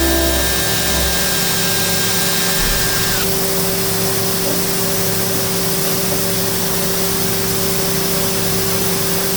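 CNC lathe running, a steady hiss over a steady machine hum. A high whine dips slightly and cuts off about three seconds in.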